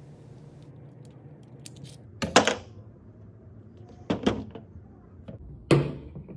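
Sharp knocks of metal parts set down on a hard tabletop: GY6 starter motors and the tools or bolts from their disassembly. There are three clear knocks, at about two, four and nearly six seconds in, and the middle one is a quick double.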